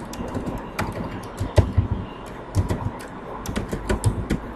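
Typing on a computer keyboard: irregular keystroke clicks, with one heavier keystroke about a second and a half in.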